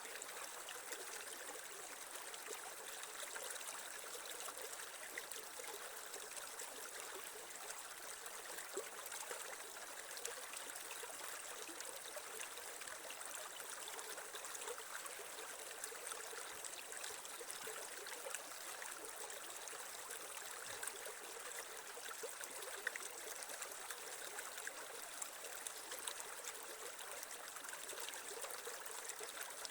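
Shallow creek water running and trickling over stones, a steady rushing with fine splashing and gurgling.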